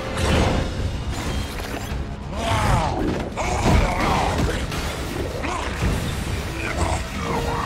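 Action-film soundtrack of a fight: dramatic music under repeated crashes and heavy impacts, with rising and falling screeches about two and a half seconds in and again near the end.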